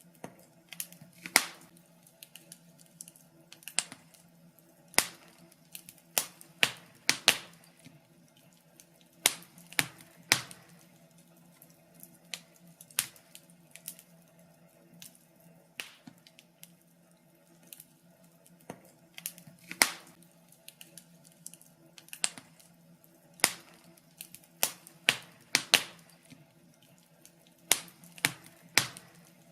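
Wood fire crackling: irregular sharp pops and snaps, some loud, others faint, over a low steady hum.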